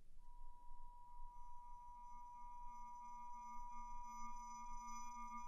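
Faint electronic drone of steady pure tones building up: a single high tone starts almost at once, a second joins about a second in, then more high tones stack above and a low hum comes in about two seconds in.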